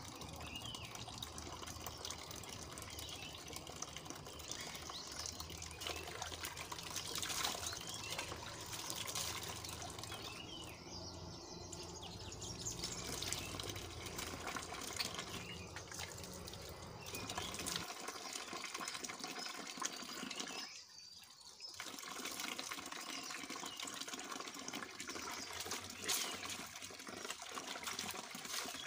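Water splashing and trickling into a plastic basin as hands scoop water from an outdoor tap onto a face. It drops away briefly about two-thirds of the way through.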